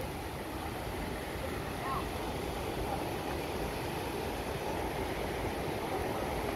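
Shallow rocky river rushing over small rapids: a steady noise that grows a little louder.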